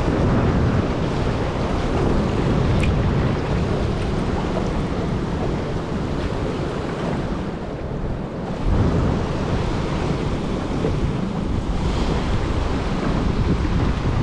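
Wind buffeting the microphone over the wash of water: a steady low rumble that drops briefly about eight seconds in and swells back.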